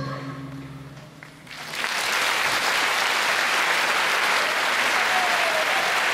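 The last note of the dance music dies away, and about a second and a half in, audience applause breaks out and carries on steadily.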